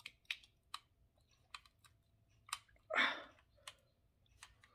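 A screwdriver working at a tight screw in a die-cast model car's display base: scattered light clicks and ticks, with one louder rasping scrape about three seconds in.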